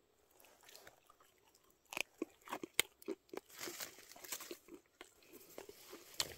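A person biting into and chewing a freshly picked raw flower shiitake (baekhwago) mushroom. There are faint soft sounds at first, then irregular crisp crunches from about two seconds in.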